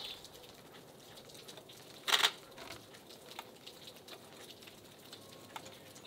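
Nikon D850 camera shutter firing a quick pair of frames about two seconds in, a short sharp double click. Faint scattered ticks fill the rest.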